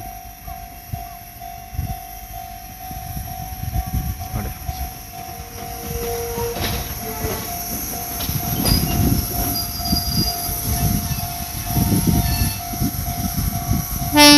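A Fuji Kyuko line train passing over a level crossing: the rumble of wheels on the rails builds through the middle and is heaviest near the end. A steady tone runs underneath, and a short blast of the train's horn sounds right at the end.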